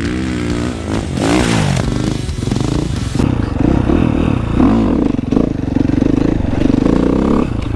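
Dirt bike engine revving hard, its pitch swooping up and down again and again as the rider opens and closes the throttle, then holding high revs for a few seconds before dropping off near the end.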